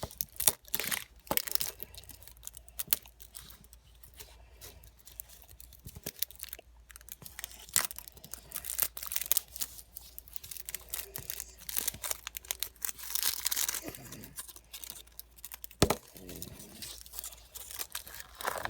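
Packaging of a putty pack being torn open and crinkled by hand, a long run of irregular rustles, rips and sharp clicks.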